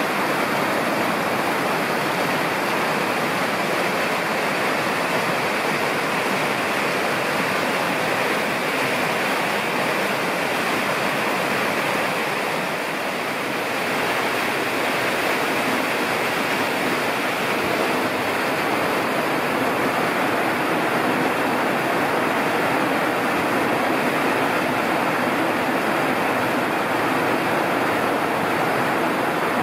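Steady rushing of falling or running water, an even hiss that holds unbroken throughout with a slight dip about 13 seconds in.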